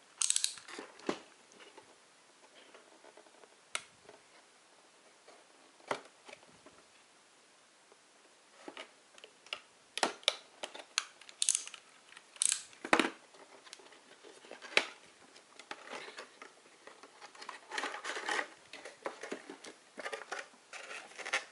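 Packaging being opened: a cardboard toy box handled and its end slit with a snap-off utility knife, with scattered sharp clicks and scrapes. Toward the end, a clear plastic blister tray crinkles and clicks as it is handled.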